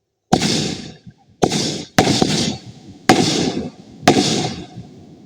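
Fireworks going off: five loud bangs, about a second apart, each dying away over about half a second.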